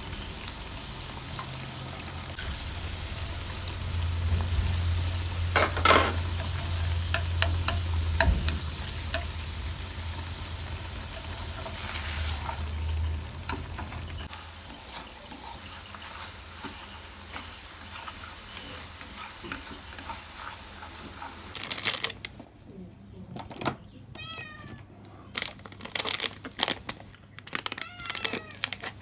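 Pumpkin soup heating in a pan, sizzling over a low hum, with a sharp knock about six seconds in and again about eight seconds in. Around twenty-two seconds in the sizzle gives way to quieter clicks and a few short rising chirp-like calls.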